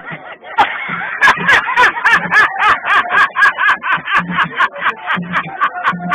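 Upbeat music with a fast, steady beat of about five clicks a second under a quick, bouncing melody.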